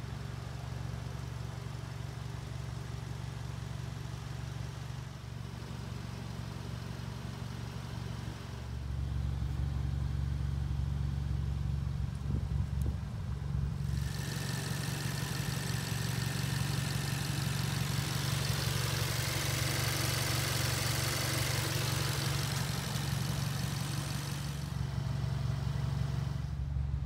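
2016 Volkswagen Golf R's turbocharged 2.0-litre four-cylinder, on an APR Stage 2 pop-and-crackle tune, idling steadily. It gets louder about nine seconds in, and a hiss joins it through the middle stretch.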